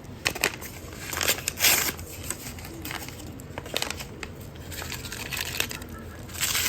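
Packet of onion soup mix crinkling as it is handled and opened, in irregular bursts, loudest about a second and a half in and again near the end.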